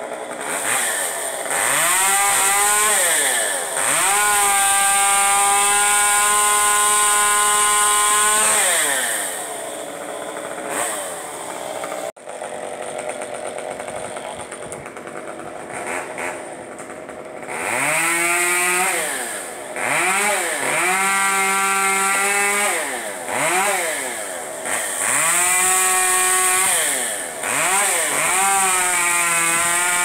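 Chainsaw engine revving up to full throttle and holding there through a cut, then dropping back to idle, about six times over; one long cut early on, then a stretch of idling of several seconds, then several shorter cuts in quick succession.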